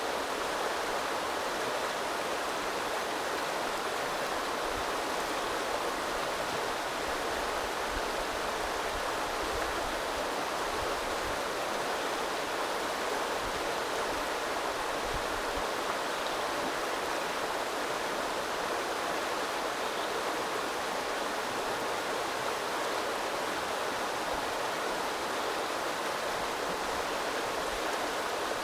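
A small river flowing and babbling over stones: a steady, even rush of water.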